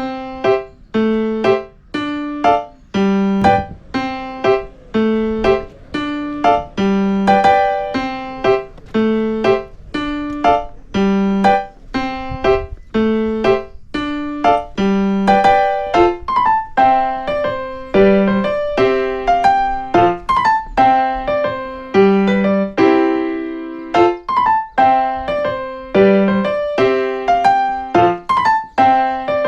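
Background piano music: a gentle melody of single notes with a bass line, each note struck and left to ring.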